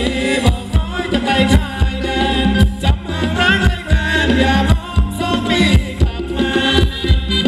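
Live Thai ramwong (ram wong) dance band music: a steady drum beat of about two strokes a second under a wavering melody.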